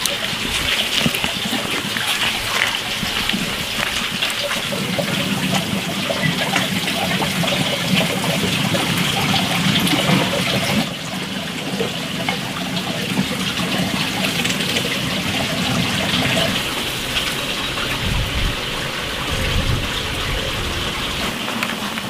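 Water trickling and splashing, a steady watery noise.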